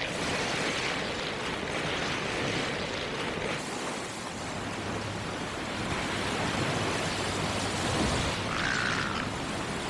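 Skis sliding fast over snow: a steady rushing hiss of snow and wind, with a brief high chirp near the end.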